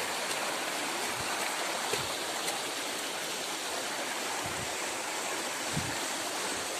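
Shallow stream of water rushing and splashing over rock ledges and boulders, a steady rush. A few soft low bumps sound under it.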